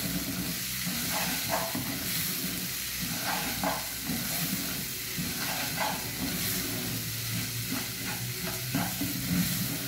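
Raw rice frying in oil with garlic and onion, sizzling steadily, while a wooden spoon stirs and scrapes it around a metal pan: the rice being toasted before the water goes in.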